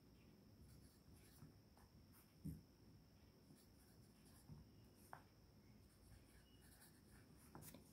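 Faint scratching of a pencil writing on workbook paper, in short strokes; otherwise near silence.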